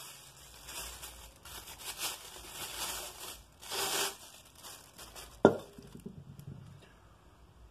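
Plastic wrap crinkling and tearing as it is pulled off a drill press's steel column, then a single sharp knock about five and a half seconds in as the metal column is set down on the bench, with a short ring after it.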